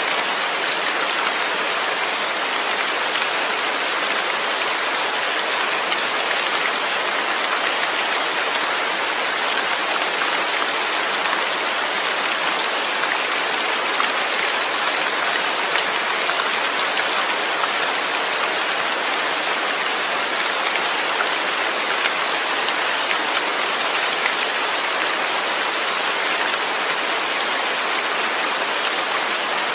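Steady rain falling, an even hiss of drops pattering on surfaces with no change in strength.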